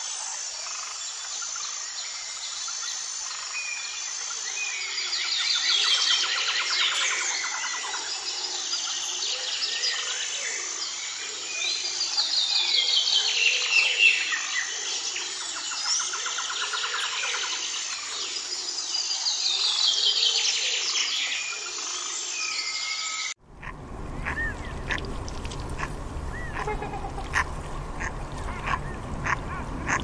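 Dense chorus of wild birds singing, with a rapid falling trill repeated about every seven seconds over a thin steady high tone. About 23 seconds in it cuts off suddenly and a different recording follows, with scattered bird calls and clicks.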